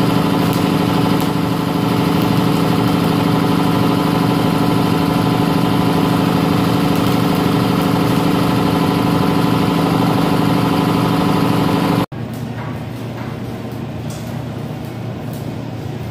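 Steady drone of a running engine with several even, unchanging tones. About twelve seconds in it cuts off suddenly, giving way to a quieter hiss with faint crackles.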